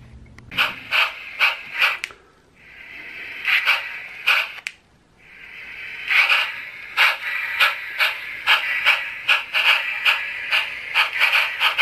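Small electric motor and gearbox of a brass Sn3 model steam locomotive running on DC power, a steady whir with regular clicks from the turning drivers and rods about two to three times a second. The sound drops out briefly twice, near 2 and 5 seconds in, then runs on steadily.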